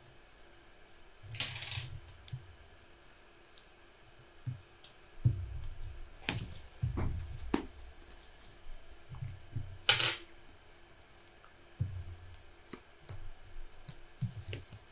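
Trading cards and game tokens being handled on a tabletop: scattered light clicks and taps, two short swishes of cards sliding, about a second and a half in and again about ten seconds in, and a few soft thumps in the middle.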